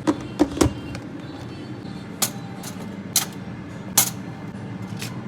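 Sharp clinks and taps of kitchen utensils against dishes, about eight of them at uneven intervals, over a steady low hum.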